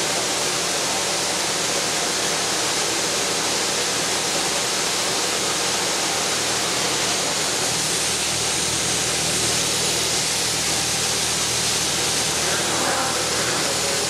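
High-pressure washer spray striking a John Deere combine harvester: a steady hiss of water jet and splashing, with a steady low hum underneath.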